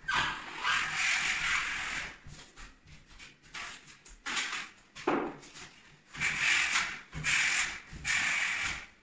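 Ciret Flexo'Prep smoothing blade on a telescopic pole scraping wet joint compound along ceiling plasterboard joints: about three long swipes, a quieter pause of a few seconds, then about three more swipes.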